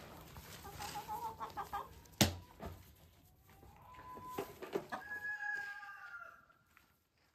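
Chickens calling, with a rooster crowing in a longer held call from about four seconds in. A single sharp knock about two seconds in.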